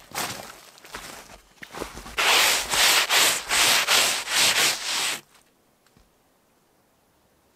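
Fresh snow being brushed off the side of a black bin by a gloved hand: a quick run of about nine scraping sweeps, roughly three a second, that stops abruptly after about three seconds. Before it, softer crunching of footsteps in snow.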